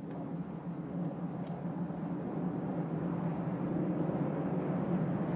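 Low steady rumble of traffic, growing slowly louder.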